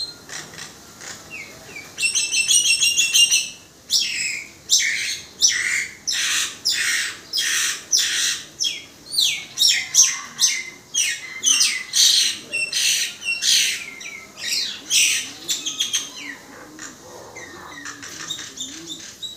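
Common (brown) myna singing: a quick rattling trill about two seconds in, then a long run of loud, short call notes, about two a second, that die down near the end.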